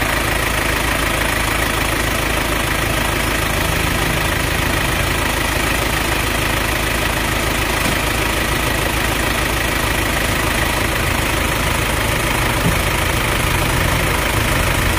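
Off-road 4x4's engine running steadily, with no change in speed.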